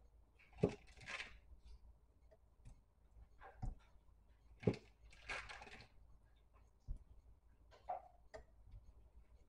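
Knife cutting a block of cream cheese on its foil wrapper against a granite countertop: several sharp taps of the blade, with crinkling of the foil in between.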